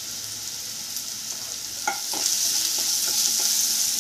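Onions, curry leaves and mustard seeds sizzling in hot oil in a kadai, with a perforated steel spatula scraping and stirring through the pan from about two seconds in, when the sizzle grows louder.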